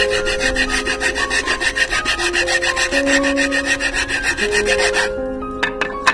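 Hacksaw blade sawing by hand through a small wooden stick, a fast, even back-and-forth rasp of the teeth on wood that stops about five seconds in.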